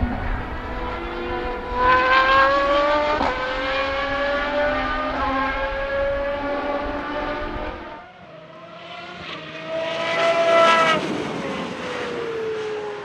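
Aston Martin 6.0-litre V12 of a Lola-Aston Martin B09/60 LMP1 racing car accelerating hard, its pitch climbing through the revs with an upshift about three seconds in. About eight seconds in the shot changes, and the engine pulls up through the revs again to its loudest point. Near the end the pitch falls away.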